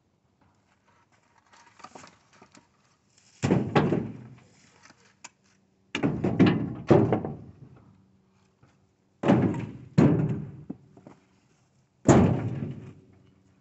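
Split firewood tossed into a pickup truck bed: pieces land with heavy thunks, about six in all, several in quick pairs a half-second to a second apart.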